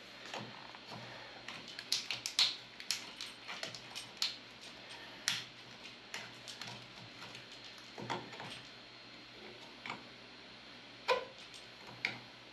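Irregular metallic clicks and clinks of a wrench on the brass and copper line fittings of an evaporator coil as a fitting is worked on by hand, with a quick cluster of clicks about two seconds in and then single clicks every second or few.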